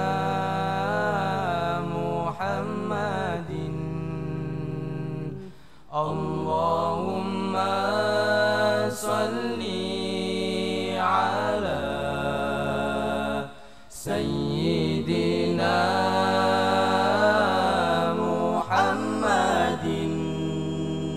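Male voices chanting Islamic sholawat a cappella: a lead voice sings long, winding melismatic phrases over steady held low notes from the group. The singing breaks off briefly twice.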